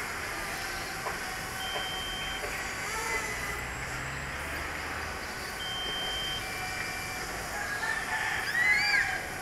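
A rooster crowing twice, with the louder crow near the end, over steady outdoor background noise. A few short, level, high-pitched tones sound in between.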